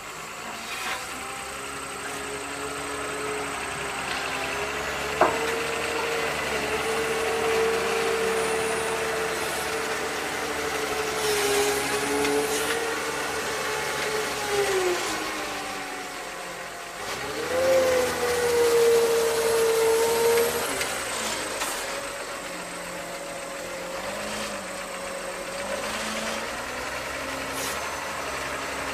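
Komatsu WA320-6 wheel loader's Cummins diesel engine revving up and down as the loader pushes into a dirt pile and lifts a full bucket, the pitch climbing highest and loudest about two-thirds of the way through. A single sharp knock sounds about five seconds in.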